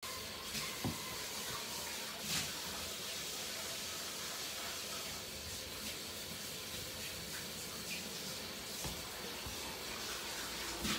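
Kitchen tap running into a sink while dishes are washed by hand, a steady hiss of water with a few light knocks and clinks.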